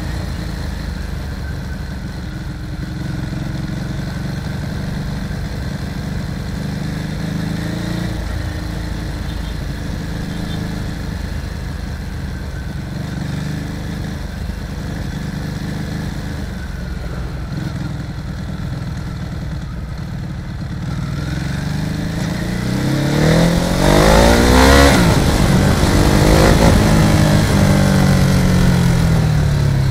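Motorcycle engine running under way, with road and wind noise, heard from a camera mounted on the bike. About two-thirds of the way through it gets louder, and engine notes rise and then fall in pitch as vehicles pass close by.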